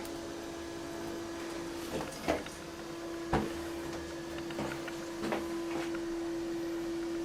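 Balterley Beo Regent toilet cistern refilling after a flush: the fill valve gives a steady humming tone, with a couple of faint knocks about two and three seconds in.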